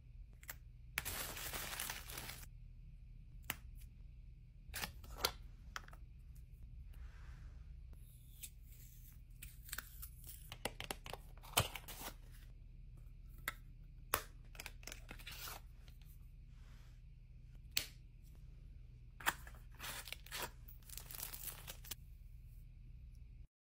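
Hands unboxing makeup: packaging rustling and tearing, with scattered short clicks and taps from boxes and a lipstick case being handled, over a faint steady hum.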